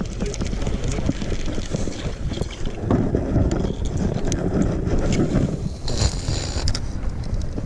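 Wind buffeting the microphone on a small open boat at sea: a steady rumbling hiss that swells about three seconds in, with a few light knocks.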